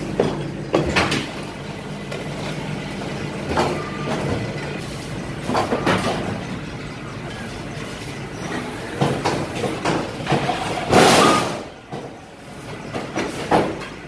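Fly ash brick and block making machine running, a steady hum with irregular clanks and knocks every second or two, and a longer, louder burst of noise about eleven seconds in.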